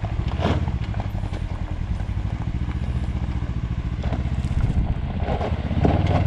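Utility vehicle's engine running steadily with a low rumble while it carries a heavy load that leaves its front tires barely touching the ground, with a few brief rattles.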